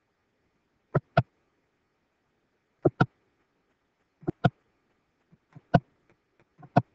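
Computer mouse button clicking about five times, each a quick double tick of press and release, spaced a second or two apart, as calculator keys are pressed on screen.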